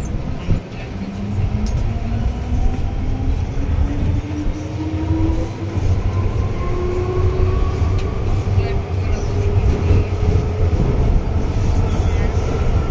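MTR Island Line M-Train heard from inside a carriage, pulling away: the traction motor whine climbs slowly and steadily in pitch as the train gathers speed, over a constant low rumble of wheels on track.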